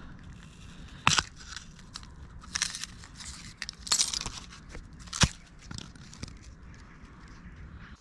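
A red apple being cut in half with a red folding pocket knife: several short crunches as the blade goes through the fruit, a little over a second apart, with the sharpest crack about five seconds in.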